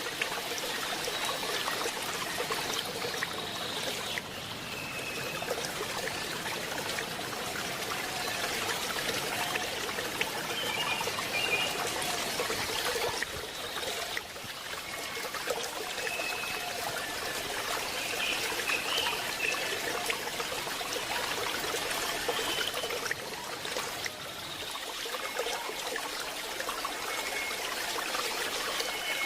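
Waterfall's water rushing and splashing steadily, with a few short high chirps now and then.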